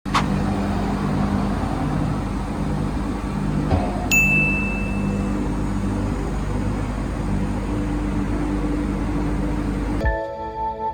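Steady machine noise of a CNC nesting router at work, with a high steady whine coming in about four seconds in. It cuts off abruptly near the end and a ringing chime follows.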